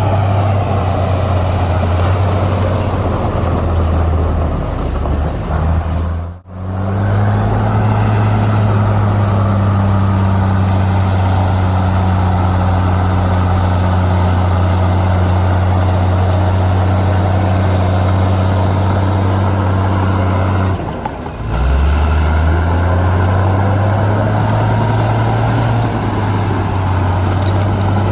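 Heavy earthmoving machine's diesel engine running steadily under load. It has a deep hum, broken by a sudden drop about six seconds in and a brief dip near 21 seconds, after which the revs climb back up.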